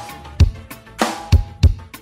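1980s synth-pop music: a steady drum beat of deep kick-drum hits and sharp snare strikes under sustained synthesizer chords.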